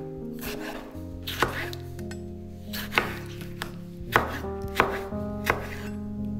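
A kitchen knife chopping food on a cutting board: several sharp chops, irregularly spaced about a second apart, over background music.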